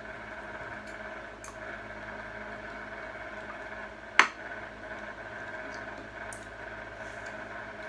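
Eating at a table: cutlery working on a plate and bowl with faint small clicks, and one sharp clack of a utensil against a dish about four seconds in, over a steady background hum.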